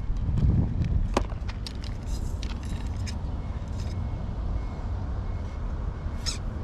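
Steady low rumble of road traffic, with many small sharp clicks and ticks from handling a pole fishing rod and its line close to the microphone.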